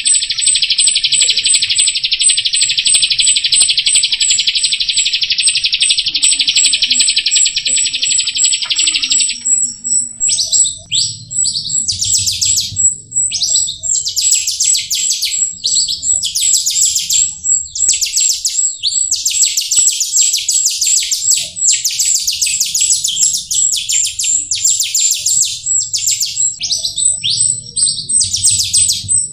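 Jalak rio starling singing. For the first nine seconds or so it gives a steady, dense, buzzy trill. It then breaks into rapid, choppy chattering phrases. A high, thin pip repeats steadily throughout.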